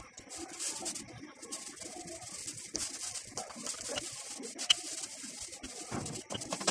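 Corn-flour dough being pressed and patted by hand into a roti, with soft slaps and scattered taps and one sharper click past the middle. Birds are calling in the background.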